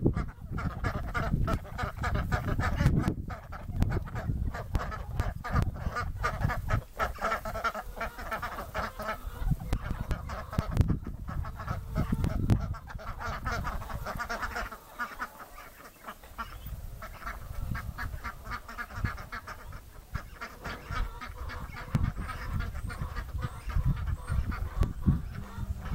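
A flock of domestic ducks quacking and chattering in quick, overlapping calls, over a low rumbling noise.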